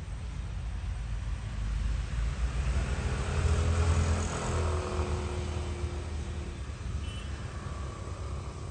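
A motor vehicle passing by, its sound swelling to a peak about four seconds in and then fading, over a steady low rumble.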